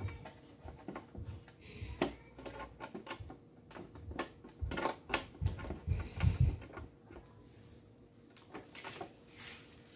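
Paper and cardboard scraps being pulled by hand out of a plastic toy garbage truck body: irregular rustling with soft thumps and taps on the plastic, busiest a little past the middle.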